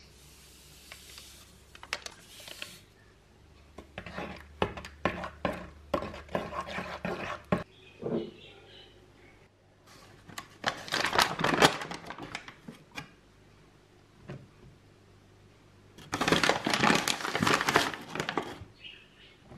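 Packaging crinkling and tearing in several bursts: a small paper packet is torn open by hand, then a paper flour bag is rustled and opened.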